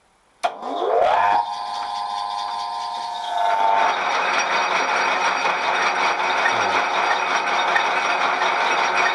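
Vintage South Bend 14-1/2" lathe switched on with a click about half a second in; its original plain-bearing motor and spindle run up with a rising whine that levels off within a second. From about three and a half seconds a louder rattling mechanical noise joins as the power feed is engaged, the back-end gear train running a bit noisy, which the owner puts down to a lack of grease.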